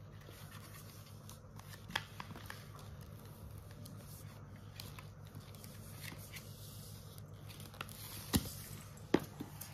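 Faint rustling and a few light sharp taps from children's picture books being handled and their pages turned, over a low steady room hum.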